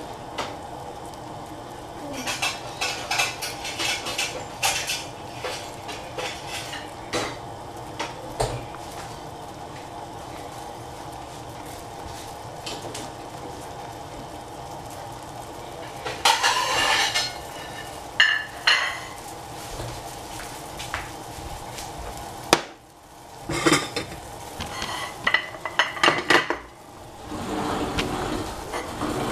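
Metal utensils clinking and scraping against a cooking pot and dishes as soup is taken out and served, in irregular clusters over a steady hum.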